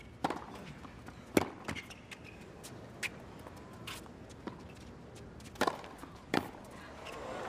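Tennis rally on a hard court: a series of about seven sharp, irregularly spaced pops as the ball is struck by the rackets and bounces on the court, over a faint crowd murmur.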